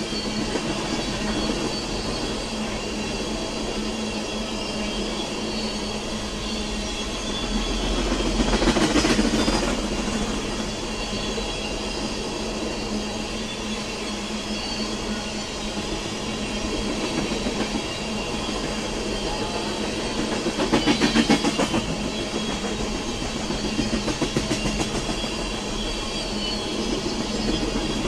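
Oil train of tank cars rolling past steadily, wheels clattering over rail joints. The clatter swells twice, about nine and about twenty-one seconds in.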